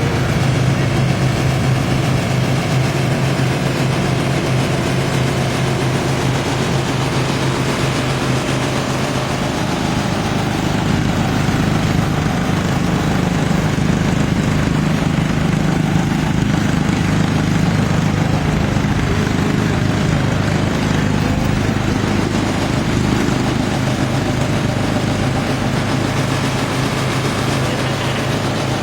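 Half-scale combine mower's 14 hp Briggs & Stratton overhead-valve engine running steadily, with a small shift in pitch partway through.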